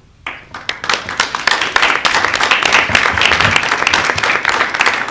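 Audience applauding: many people clapping. It starts just after the beginning and swells to a steady level within about a second.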